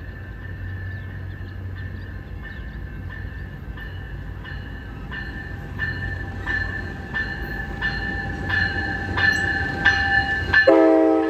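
Amtrak passenger train approaching a grade crossing: a low rumble builds while a bell rings about one and a half times a second, growing louder. Near the end the train's horn starts blowing a chord of several notes.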